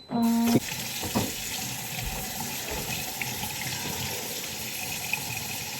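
Kitchen tap running steadily into a sink, turned on just after the start, with a brief voice sound as it begins.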